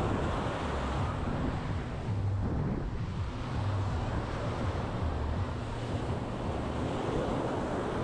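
Caribbean surf washing onto the beach, with wind buffeting the microphone in an uneven low rumble.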